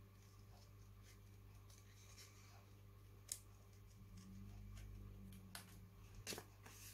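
Small scissors faintly snipping through paper as a stamped image is cut out, a few soft snips with a sharper click about three seconds in and more near the end. A low steady hum runs underneath.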